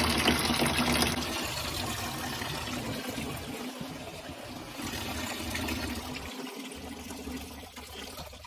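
Water draining out of a stainless-steel sink basin through its opened drain valve and down the PVC P-trap and drain line: a steady rush that slowly tapers off as the basin empties.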